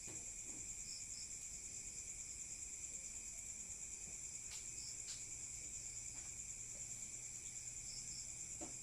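Steady, high-pitched chorus of insects in two bands, with a few short high chirps scattered through it.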